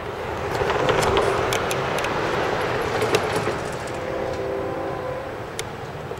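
A road vehicle passing close by: a rush of tyre and engine noise that swells about a second in and slowly fades, with scattered sharp clicks and rattles close to the microphone.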